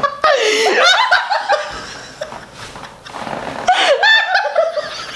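Women laughing hard. There is a loud burst of laughter at the start, which dies down in the middle, then a second loud burst about four seconds in.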